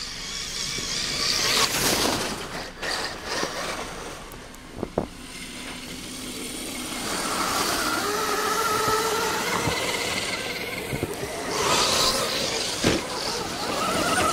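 Electric motor and gear whine of a radio-controlled scale crawler truck driving through snow, its pitch rising and falling with the throttle and climbing near the end.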